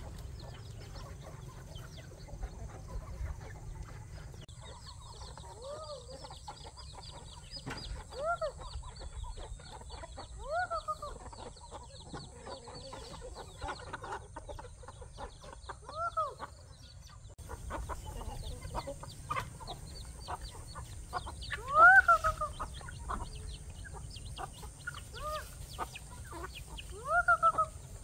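Chickens clucking, a short rising-and-falling call every few seconds, the loudest about 22 seconds in.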